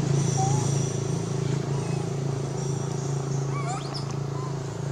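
A steady low engine hum runs throughout, with a few short high animal chirps over it and a rising squeak-like call near the end.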